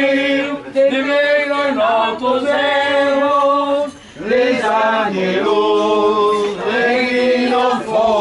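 A small group of people singing together without accompaniment, in long held notes, with a short break about four seconds in.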